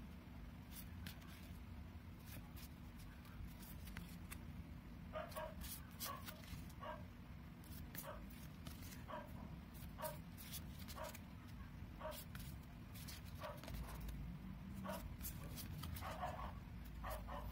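Photocards being handled and flicked through by hand, with light sharp clicks. Behind them a dog barks in short barks about once a second, starting about five seconds in.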